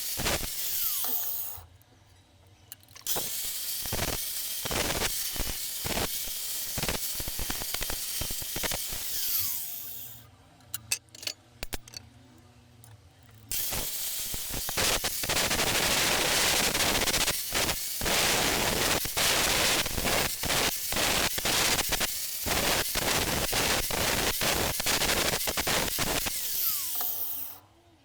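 Harsh scratchy noise of a tool working a surface, made of many quick strokes in long stretches, broken by two short pauses.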